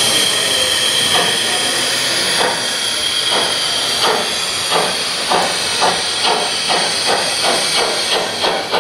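Sound module of an LGB G-scale model steam locomotive: steam hiss, then chuffs that quicken steadily as the locomotive pulls away with its train.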